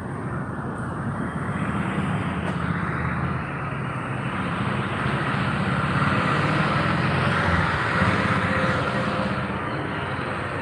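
Street traffic: a motor vehicle's engine running steadily, swelling to its loudest past the middle and easing off toward the end.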